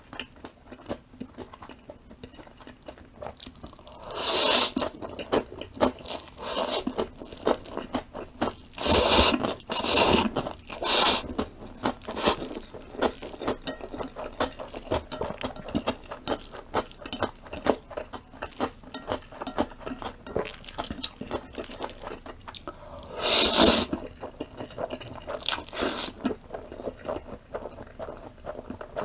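Close-miked eating of instant spaghetti noodles: a steady stream of small wet chewing clicks, with several louder slurps of noodles about four seconds in, three or four between nine and twelve seconds, and one near the end.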